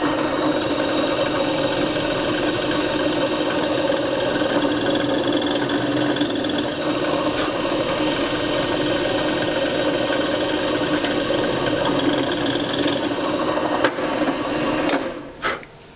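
Drill press running steadily, spinning a center drill that spots pilot holes in a walnut base; the motor stops about a second before the end.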